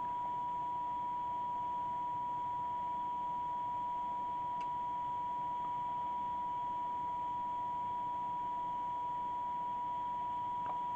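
Steady single-pitched test tone from a signal generator, received and played out by a CB radio over a light hiss of receiver noise. The generator signal is weak, and the radio's receive inductors are being tuned to peak the tone.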